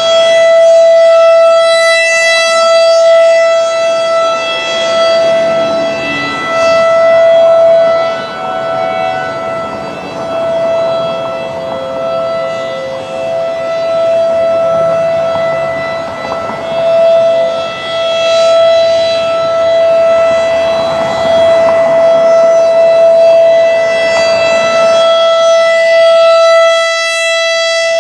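Federal Signal 2001 DC tornado siren holding a steady, loud single tone. Its loudness swells and fades over and over as the rotating siren head sweeps around.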